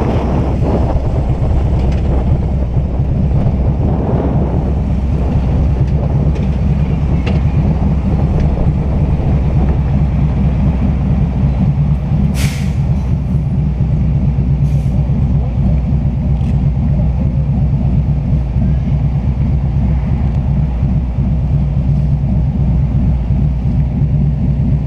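Motorcycle engines idling and running at walking pace, a steady low drone. About halfway through there is one short, sharp hiss.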